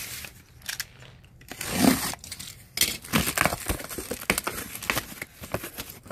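Packaging being handled during an unboxing: crinkling, rustling and tearing with many small irregular knocks. It starts about a second and a half in and is loudest around two seconds in.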